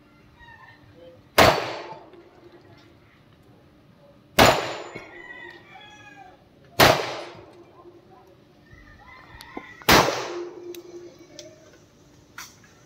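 Pistol fired four single shots, spaced about two to three seconds apart, each a sharp crack with a short echoing tail.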